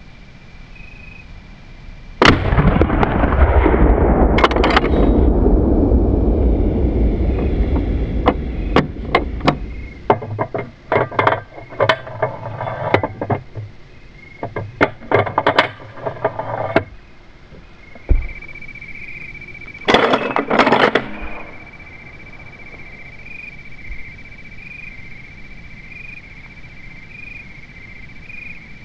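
A single rifle shot from a Marlin 1895 lever-action in .45-70 loaded with homemade black powder, about two seconds in, followed by a long rolling echo that dies away over several seconds. Then scattered metallic clicks and clatter of the gun and cartridges being handled, with insects chirring faintly throughout.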